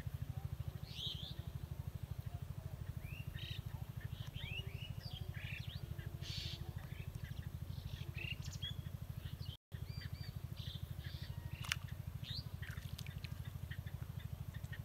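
Birds chirping and calling in short, scattered notes over a steady low hum, with one sharp click about twelve seconds in and a brief dropout near the middle.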